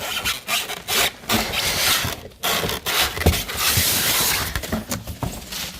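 Cardboard packaging rubbing and scraping in irregular strokes, with scattered knocks, as a carpet shampooer is pulled out of its box.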